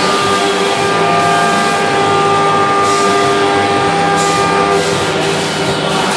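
Background music with a stepping bass line, over steady tones that are likely running machinery.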